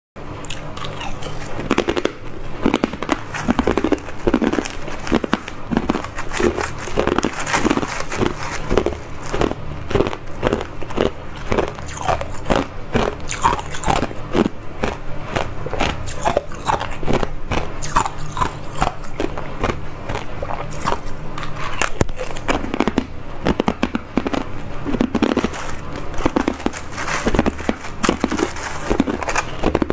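Small hard ice cubes being bitten and chewed close to a clip-on microphone: a steady run of sharp crunches and cracks, many to the second.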